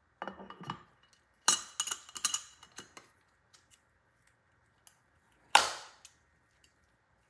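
The back half of an underwater camera housing being seated and its metal clamp latches closed by hand: handling and scraping, a run of clicks and knocks, then one sharp latch snap near the end, the loudest sound.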